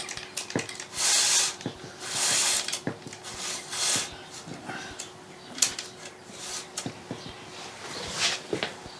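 Hands working parts of a new chainsaw into place: several short rubbing scrapes with light clicks and ticks between them.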